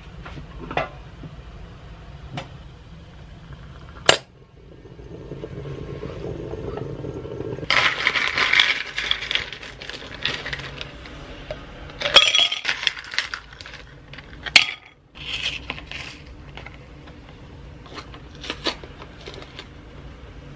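A plastic bag crinkles as homemade ice cubes are tipped out of it. The ice then clatters into a glass tumbler, followed by a string of sharp clinks of ice against glass.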